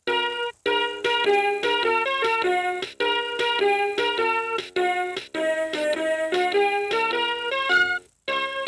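Electronic nursery-rhyme melody from a VTech Explore and Learn Helicopter toy: simple keyboard-like synthesized notes in short phrases with brief gaps between them.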